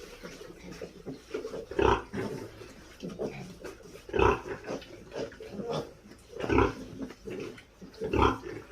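Pigs grunting: four loud short grunts about two seconds apart, with quieter grunts between them.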